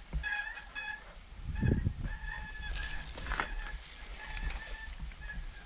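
Mountain-bike brakes squealing in repeated short, steady, high-pitched squeals as the bike is braked on and off down a bumpy dirt trail, with the rumble and a sharp knock of the bike jolting over the ground.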